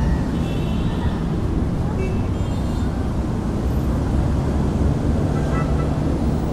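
Semi-truck diesel engine idling: a steady low rumble.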